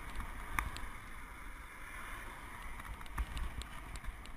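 Wind rushing over a bike-mounted action camera's microphone with road and tyre noise while a road bike is ridden, plus a few sharp clicks.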